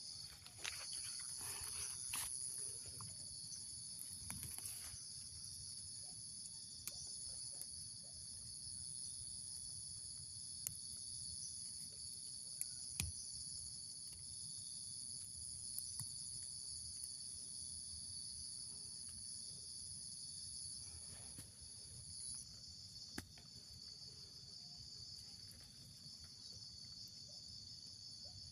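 Insects chirring steadily in two high-pitched bands, the higher one stopping about three quarters of the way through, with a few faint clicks.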